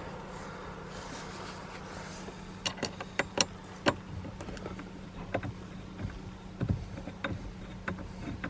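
Scattered sharp clicks and light metal taps of an aftermarket steering wheel being seated on its hub and its bolts done up, over a steady low hum.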